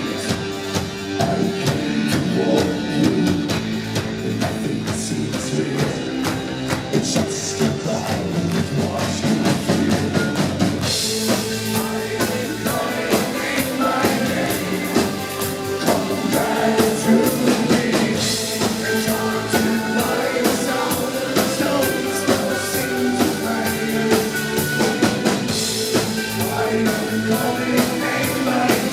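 Live electronic rock band playing, with a drum kit, synthesizers and singing, heard from the front of a concert hall; the band grows fuller and brighter about eleven seconds in.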